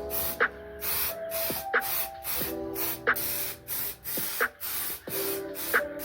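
Lo-fi hip hop background music: a steady, unhurried drum beat with hissy hi-hats, a kick, and a snare about every second and a third under soft sustained chords.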